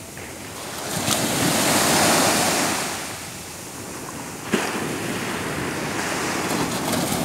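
Sea waves breaking and washing over a sandy shore, swelling to a peak about two seconds in and then easing, with wind buffeting the microphone. A single short sharp click about four and a half seconds in.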